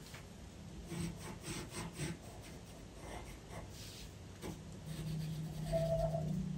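Pencil drawn over paper in short, faint scratchy strokes, tracing lines of a picture. A low steady hum comes in about five seconds in.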